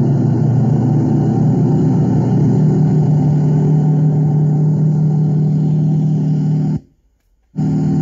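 Crawler bulldozer's diesel engine running at a steady pitch while pushing sand. The sound cuts out abruptly for under a second near the end, then resumes unchanged.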